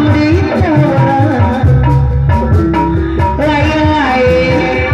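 Jaipong music played live: drums and regular percussion strokes under a sliding, wavering melody line.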